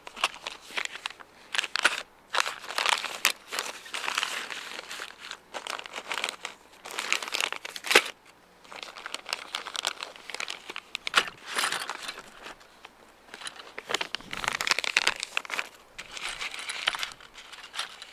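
Clear plastic parts bags crinkling and rustling in bouts as they are handled and opened to get out small headlight-adjuster springs and plastic clips, with a sharp click about eight seconds in.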